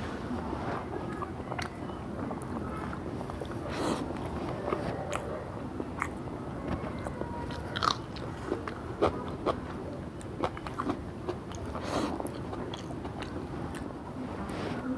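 Close-up eating sounds: a person chewing and biting mouthfuls of mutton dum biryani, with scattered short crunchy clicks and lip smacks throughout.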